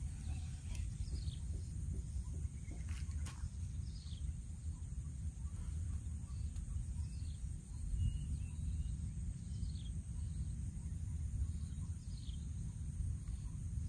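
Outdoor marsh ambience: a bird repeats a short falling call every second or two over a steady high insect drone, with wind rumbling on the microphone. A few sharp clicks come in the first few seconds.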